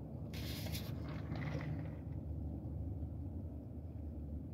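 Steady low hum of a car running, heard from inside the cabin, with two short rustling sounds about half a second and a second and a half in.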